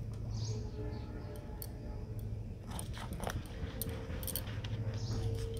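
Scales being scraped off a kalbasu fish against the blade of a boti, a fixed curved cutting blade: scattered short scraping clicks, with a steady low hum underneath.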